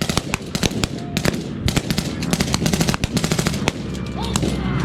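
Several guns firing blanks in rapid, irregular, overlapping shots, with machine-gun fire among them. A low aircraft engine drone builds underneath near the end.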